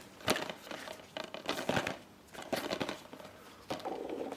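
Hands unwrapping and opening a plastic Blu-ray case, with intermittent crinkling and rustling of the plastic and a few small clicks.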